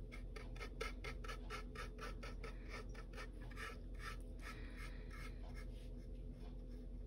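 Faint, quick scratching strokes of a small paintbrush working acrylic paint onto a wood panel, about three or four strokes a second.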